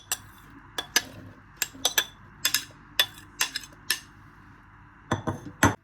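Kitchen utensils and dishes clinking in a run of sharp, irregular taps as ingredients are added to a crockpot, with a heavier clunk near the end.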